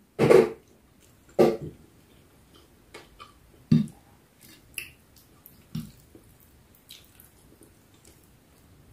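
Close-up mouth sounds of a person eating rice by hand: chewing and smacking in short separate bursts, roughly one a second.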